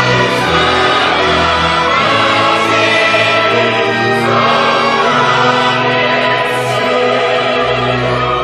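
A choir sings a hymn in held chords over steady low bass notes.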